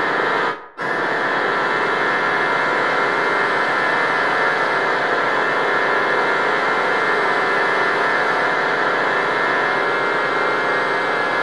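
Loud, steady, harsh static-like noise with a hum running through it. It drops out briefly just under a second in, then carries on unchanged.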